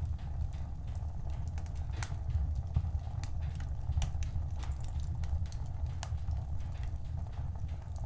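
Wood fire crackling in a fireplace: irregular sharp pops and snaps, several a second, over a low steady rumble.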